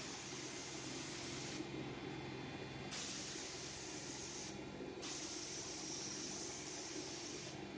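Gravity-feed spray gun hissing as it sprays, in three passes: the trigger is let off about a second and a half in, again around four and a half seconds, and near the end. A steady low hum runs underneath.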